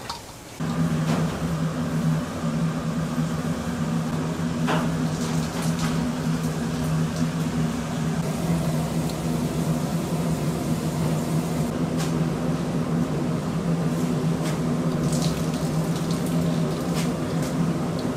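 Water running hard with a steady motor hum, switched on abruptly about half a second in and running without a break.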